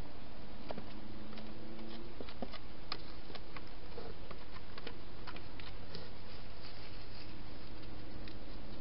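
Irregular small clicks and taps over a steady hiss: a wild hedgehog eating and moving about inside a plastic feeding box.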